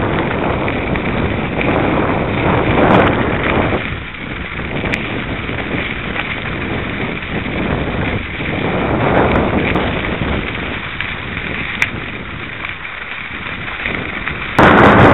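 Wind buffeting the microphone and tyres crackling over a dirt trail while riding, a rough rush that swells and fades in waves. Near the end it jumps abruptly to a louder, harsher rush of wind noise.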